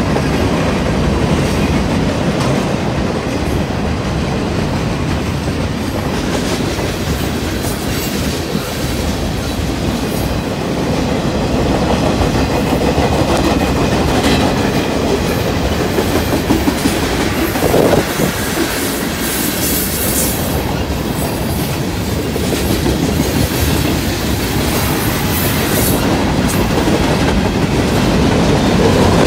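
Freight train cars rolling past close by: tank cars, boxcars and covered hoppers make a steady, loud rumble and rattle, with the clickety-clack of wheels over the rail joints.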